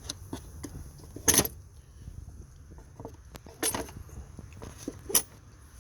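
Hard plastic clicking and rattling as the clips and hoses on a BMW 328i's air filter housing are worked loose by hand. There are a few sharp clicks, the loudest about a second in and two more later.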